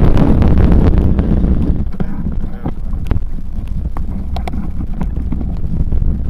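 Wind buffeting the microphone and a bicycle rattling as it is ridden along a rough dirt trail. The rush of wind drops about two seconds in, leaving scattered clicks and knocks from the bike over the ground.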